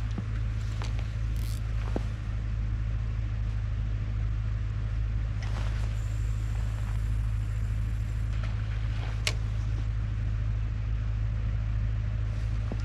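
A steady low rumble runs throughout. Over it, a feeder rod is cast: a short swish about six seconds in, then a thin high whirr for a couple of seconds as line runs off the spinning reel, and a sharp click about nine seconds in.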